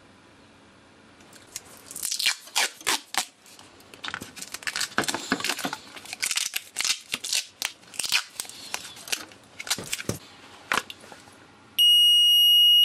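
Irregular scraping and crackling as the gas detector and its green battery pack are handled and prised at with a screwdriver. Near the end comes a loud, steady, high-pitched electronic beep lasting about a second.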